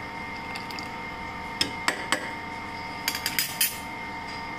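A steel spoon clinking against a stainless steel pot while stirring milk: a few separate clinks in the first half, then a quick cluster of clinks about three seconds in, over a steady faint background hum.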